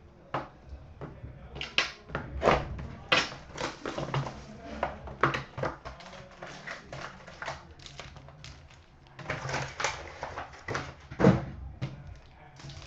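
Hockey card box and pack wrappers being opened and the cards handled: a rapid, irregular run of rustles, clicks and taps of card and wrapper.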